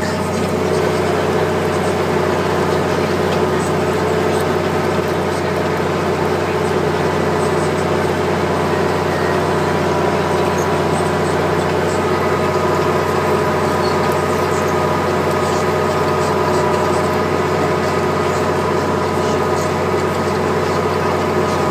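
Case IH 1455 XL tractor's six-cylinder diesel engine running steadily under ploughing load, heard from inside the cab.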